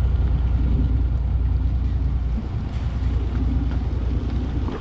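Steady low rumble of a fishing boat's engine, mixed with wind buffeting the microphone, easing briefly about halfway through.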